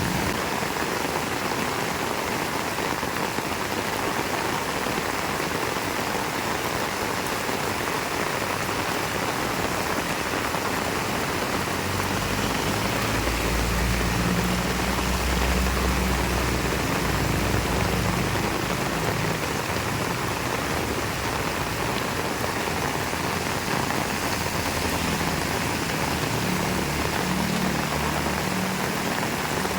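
Heavy rain pouring steadily, an even hiss of drops on the surfaces around. A low rumble rises under the rain about twelve seconds in, lasts several seconds, and comes back more faintly near the end.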